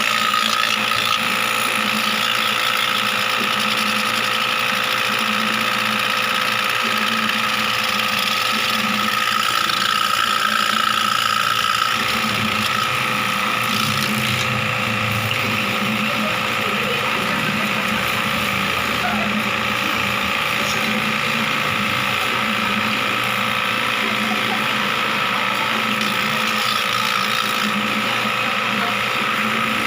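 A small machine motor running steadily with a constant whine and hiss; nothing in it stops or changes.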